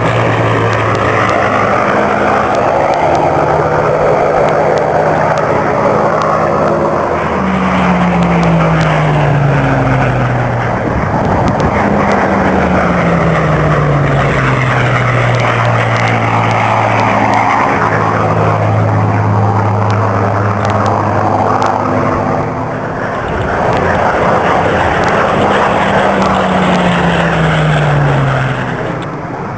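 Rolls-Royce Merlin V12 engine of a Hawker Hurricane fighter running hard through low flypasts. The engine note drops in pitch three times as the aircraft passes, about a quarter of the way in, just under halfway, and near the end.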